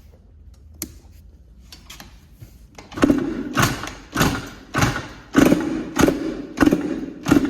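Yamaha YZ85 two-stroke dirt bike engine being kicked over repeatedly with the choke on, about eight quick strokes a little over half a second apart starting about three seconds in, without catching. It 'don't even want to crank': the engine, which had knocked after locking up, has a seized crankshaft.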